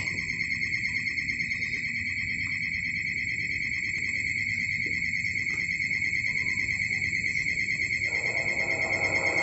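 A loud, steady high-pitched trilling tone, pulsing about seven or eight times a second, over a low rumble; near the end a broader rumble rises beneath it.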